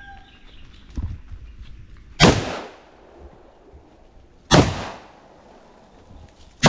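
Three single shots from an M4-style rifle, a little over two seconds apart, each a sharp crack with a ringing echo, with a softer knock about a second in.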